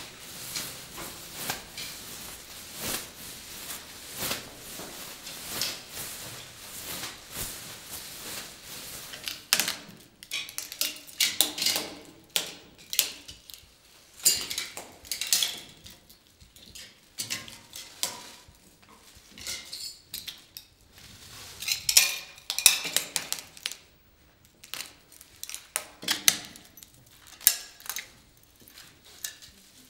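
Broken mirror tiles and glass shards clinking and crunching under high-heeled sandals as someone walks over them. The first ten seconds or so are a dense patter of small clinks; after that come sharper, separate clinks and crunches in clusters.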